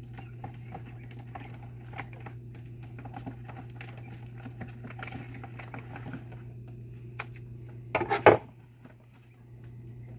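Spring-loaded fishing scissors snipping through a quail carcass, with scattered small clicks and a loud cluster of clicks about eight seconds in, over a steady low hum.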